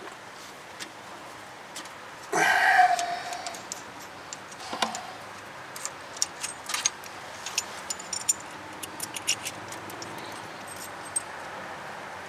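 Metal clinks and rattles of a brake-line flaring bar being handled and taken off a freshly flared brake line, with a short louder metallic squeal about two seconds in and many small sharp clicks after it.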